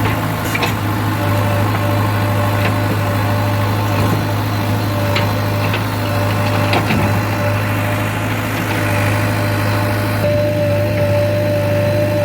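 JCB 3DX 49 hp backhoe loader's diesel engine running steadily with a low hum, a few light knocks scattered through, and a steady higher tone that grows stronger about ten seconds in.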